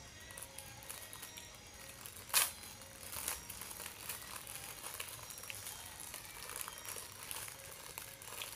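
Crinkling and crackling of food wrapping being handled, with a sharp crackle about two seconds in, over faint background music.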